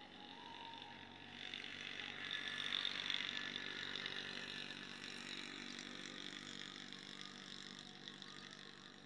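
A distant motor vehicle's engine running, growing louder about two to three seconds in and then fading slowly, as if passing by.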